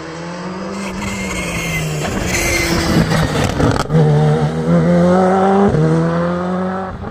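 Rally car engine revving hard as the car climbs toward the camera and takes a hairpin close by. The pitch climbs, drops at gear changes and climbs again, and it is loudest as the car goes past.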